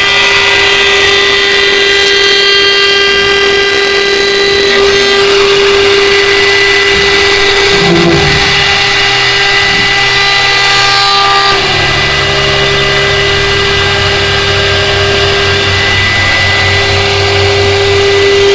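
CNC wood lathe running with a steady, whining motor tone; a lower hum comes in about twelve seconds in.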